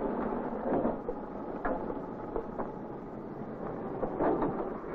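Goods train of loaded wagons moving off slowly: a steady rumble of wheels on rail with a few knocks, swelling about a second in and again near the end.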